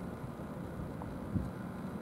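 Steady low outdoor rumble, with a faint soft thump about one and a half seconds in.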